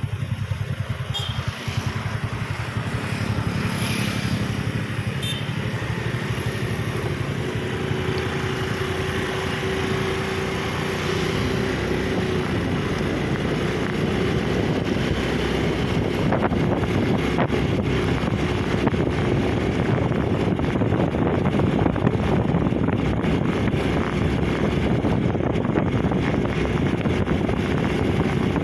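Motorcycle engine running steadily as it rides along, with wind rumbling on the microphone; the sound grows a little louder about halfway through.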